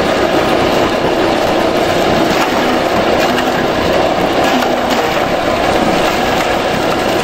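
AGR-CH250 multi-purpose chopper running steadily under load as vegetables are fed into its hopper, its rotating blades cutting them with a few faint knocks over the constant machine noise.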